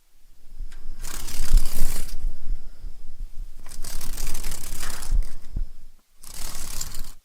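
Dragonfly wings, close up: a rattly, crackling wing buzz that comes in surges, with a low rumble underneath and a brief cut-out about six seconds in.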